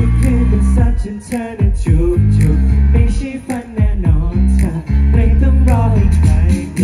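Thai pop song performed live: male singing over a heavy bass line and a steady drum beat.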